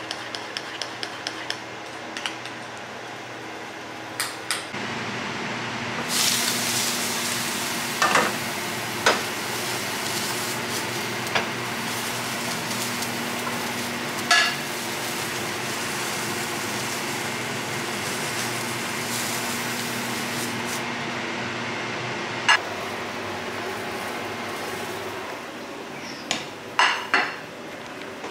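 A fork stirring batter in a ceramic bowl, clicking rapidly against the sides. Then egg whites sizzling in a frying pan, with a few sharp knocks of the pan and utensil.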